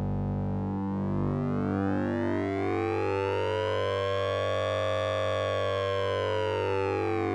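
Synthesized electronic tone: a steady low drone under a dense stack of overtones that glide slowly upward, peak about five seconds in, then sweep back down, like a slow siren.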